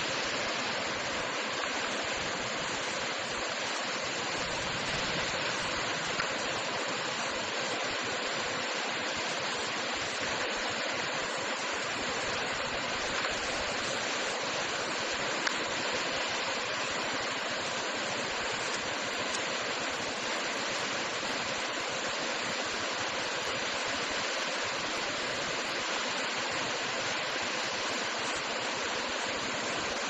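Waterfall: water pouring steadily down a rock face, an even, unchanging noise with no rise or fall.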